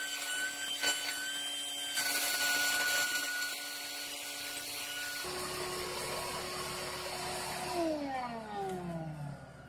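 Shop vac running with a high steady whine while it sucks dirt out of a culvert through its hose. About five seconds in its sound changes, and near the end it is switched off: the motor winds down with a falling pitch.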